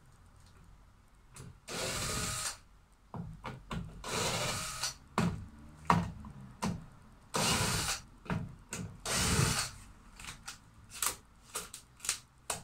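Cordless drill-driver running in four short bursts, driving screws into the caravan's door lintel, with clicks and knocks of handling between the runs.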